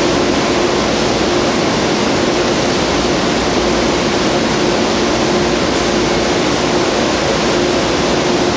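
Steady packaging-plant machinery noise: an even roar with a constant hum, unchanging throughout.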